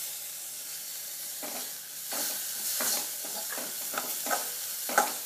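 Onion and spice masala sizzling in a metal kadai while a perforated steel spatula stirs it and scrapes the pan. Steady frying hiss, with a run of scraping strokes from about a second and a half in and a sharp tap of the spatula near the end.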